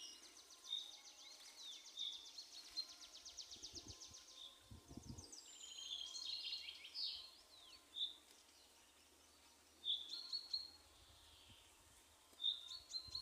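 Several songbirds singing in spring: a fast, even trill in the first four seconds, with short high chirps and whistled notes from other birds throughout. A brief low rumble about five seconds in.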